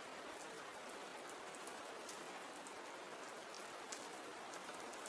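Soft, steady rain: a faint, even hiss with light drop ticks scattered through it.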